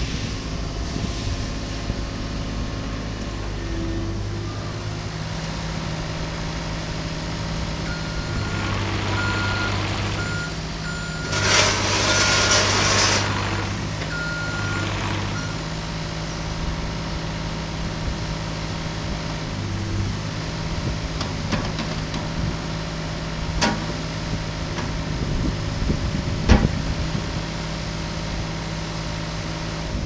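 Caterpillar 303.5 mini excavator's diesel engine running steadily while its hydraulics work the boom and bucket, the engine note shifting with the load. A travel alarm beeps in short bursts for several seconds about a third of the way in, with a burst of hiss around the middle and two sharp knocks near the end.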